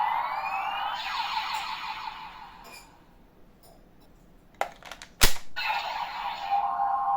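DX Zeztz Driver toy belt playing its electronic transformation sound effects, with rising sweeps in the first two seconds. After a short pause come sharp plastic clicks as the belt is worked, the loudest about five seconds in, and then another electronic sound starts, with a held tone.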